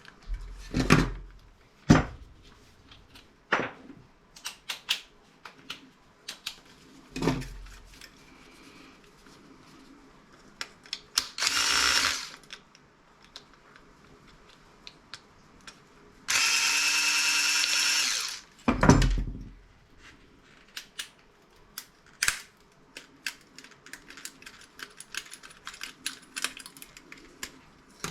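A power drill runs steadily for about two seconds past the middle, after a shorter burst a little earlier. Around it come scattered clicks and knocks of tools and metal parts being handled while a monitor's circuit board is stripped.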